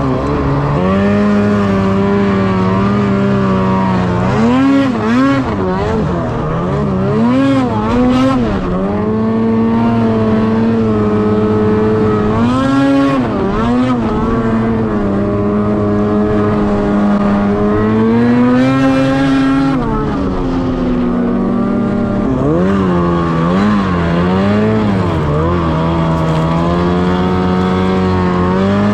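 Ski-Doo Summit X 800R E-TEC two-stroke twin snowmobile engine running loudly. Its pitch holds steady between several quick throttle blips and one longer rev about two-thirds of the way through.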